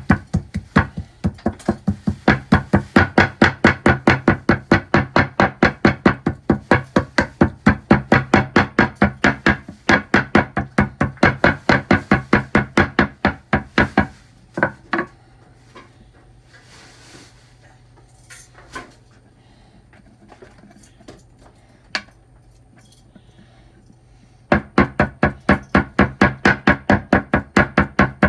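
A knife chopping on a cutting board in a fast, even rhythm of about five strokes a second. It stops about halfway through, leaving only a low hum and a few scattered knocks, then picks up again near the end.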